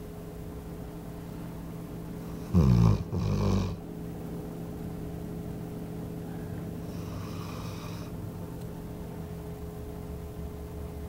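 Small female dog snoring in her sleep: one loud, rough snore in two parts about two and a half seconds in, then a fainter one around seven seconds, over a steady background hum. The owner takes the heavy snoring for a sign that she is having a nightmare.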